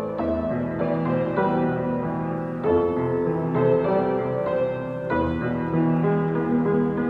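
Grand piano, damaged by a typhoon and repaired by an amateur, playing a slow piece: low bass notes held under a melody, with new notes and chords struck about every second.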